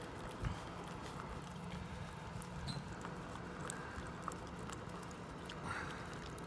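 Faint wet clicks and smacks of a mother Havanese licking her newborn puppy clean, scattered irregularly over a low steady hum.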